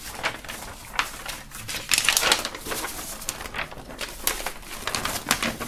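Large folded paper poster rustling and crinkling as it is handled and turned over, in irregular bursts, louder around two seconds in and again past four seconds.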